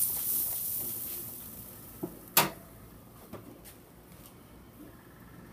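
A spray bottle's hiss dies away in the first second. About two and a half seconds in comes one sharp metal clank, with a few lighter knocks around it, as the lid of the Dyna-Glo charcoal smoker is shut.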